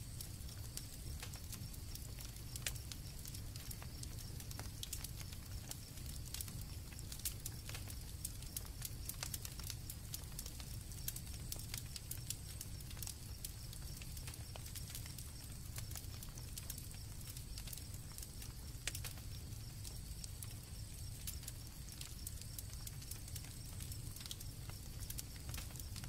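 Campfire crackling, with sharp irregular pops over a steady low rumble, and crickets chirping steadily at a high pitch in the background.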